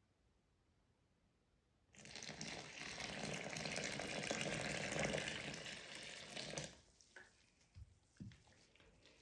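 Warm water poured from a measuring jug into a glass bowl of flour, a steady splashing stream starting about two seconds in and lasting about five seconds. After it stops, a silicone spatula stirs the wet flour with a few faint taps against the bowl.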